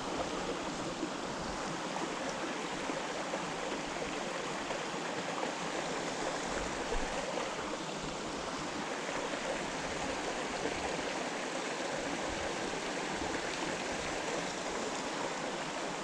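Small rocky mountain stream running shallow over stones: a steady rush and trickle of water.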